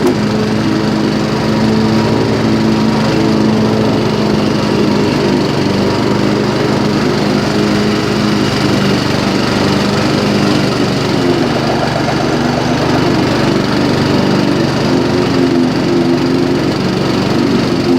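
Yard Machines small engine running steadily with its belt squealing in first gear.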